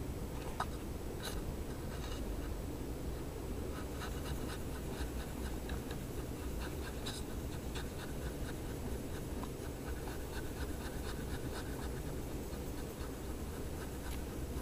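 Brasso metal polish being rubbed by hand over the stainless-steel back of an iPod touch: quick, short scratchy rubbing strokes, coming thicker from about four seconds in, over a steady low hum.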